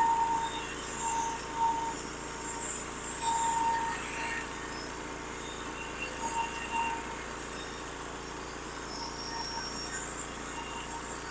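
Norwood HD36 portable bandsaw mill running steadily as its blade takes an inch off a slab, a constant mechanical hum that is a little louder in the first few seconds.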